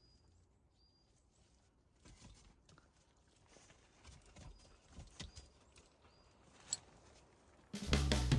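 Faint scattered light taps and clicks with a few short high chirps, one click sharper than the rest; guitar background music starts abruptly near the end.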